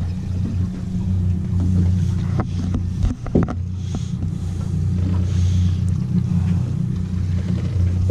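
Twin outboard motors idling with a steady low hum, with a few sharp clicks and knocks about three seconds in.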